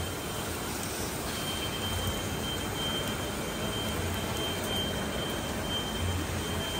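LYAN-1850 solidboard laminating machine running steadily, its kraft paper reels unwinding: an even machine noise with a thin, steady high whine over a low hum.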